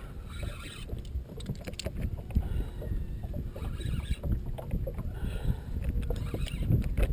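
Water lapping against a small boat's hull with wind rumbling on the microphone, and scattered knocks and clatter from movement on the deck.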